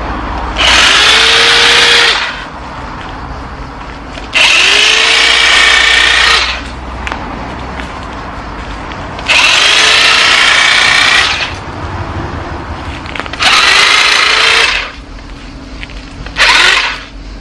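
Corded electric pole cutter cutting overhead branches. Its motor runs in five bursts of one to two seconds, each spinning up with a rising whine and stopping abruptly; the last burst is shortest.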